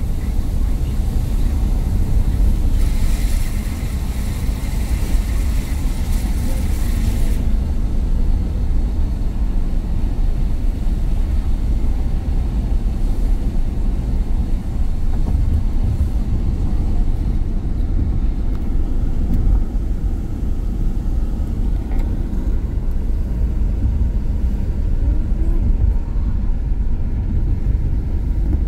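Steady low rumble of a car's engine and tyres on a wet road, heard from inside the cabin, with a stretch of added hiss from about three to seven seconds in.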